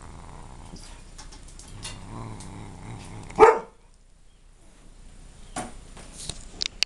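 A cat growls low and steadily while chewing a dog's dental chew stick, then gives one loud, short cry about halfway through. A few sharp clicks follow near the end.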